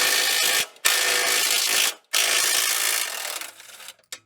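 A power tool run in three bursts of about a second each, with short pauses between, working on a car's exhaust during its removal.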